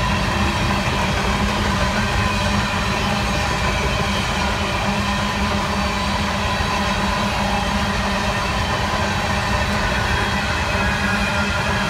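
Coal cars of a long freight train rolling past: a steady rumble of steel wheels on the rails, with a steady tone running underneath.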